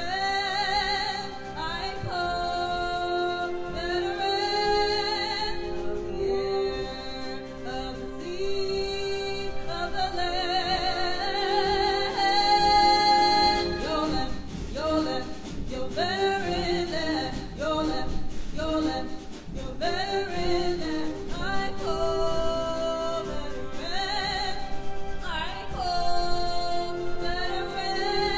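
A woman singing with vibrato, accompanied by a symphony orchestra with strings playing held notes.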